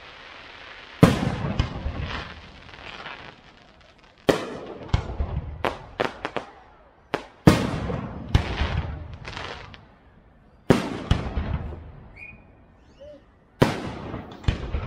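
Aerial fireworks shells bursting overhead: about fifteen loud bangs, some in quick runs of two or three, each trailing off in a rolling echo.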